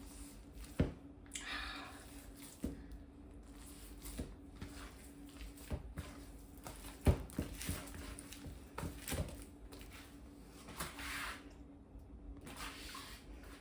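Hands working soft, sticky bread dough in a bowl: irregular squelches and rustles with scattered knocks, the sharpest about seven seconds in, over a faint steady hum.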